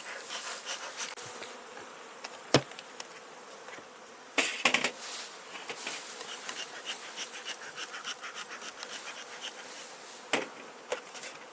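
Honeybees buzzing around an opened hive, with a sharp knock about two and a half seconds in, a short loud rustle around four and a half seconds, and another knock near the end.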